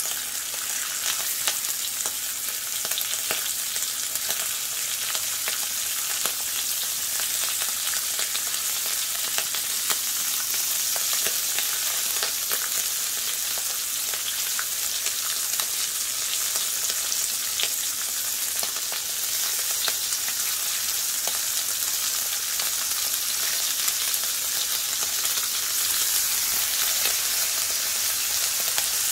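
Bacon sizzling on the hot steel top of a Blackstone 22-inch propane griddle: a steady frying hiss full of tiny spitting pops as the fat renders, growing a little louder near the end.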